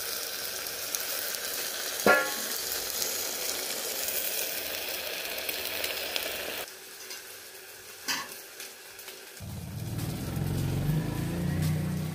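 Food sizzling in a covered steel pan over a wood-fired mud hearth, with a sharp knock about two seconds in. The sizzle drops away around seven seconds, another knock follows, and then a low steady rumble takes over.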